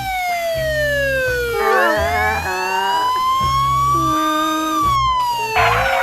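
Cartoon sound effect of a siren-like wailing tone that slides slowly down, rises again from about two seconds in, and falls near the end, over background music with a repeating bass line. A cluster of short warbling chirps sounds at the low point, and a burst of hiss comes near the end.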